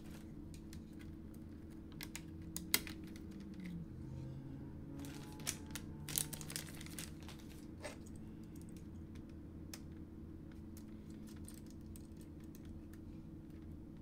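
Faint, scattered small clicks and taps of hands handling a laptop's plastic case and parts during disassembly, with a few quick clicks together about five to seven seconds in, over a faint steady low hum.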